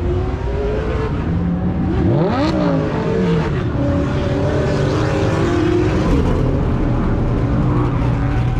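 Car engine revving hard, its pitch sweeping up and down sharply about two seconds in, over the steady drone of other engines running.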